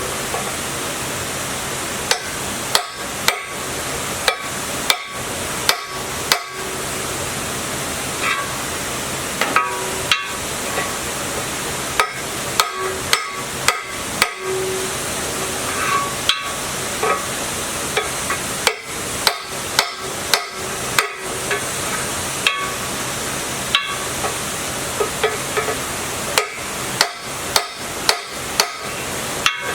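Hammer blows on metal, struck irregularly in short runs, some strikes leaving a brief metallic ring, over a steady hiss.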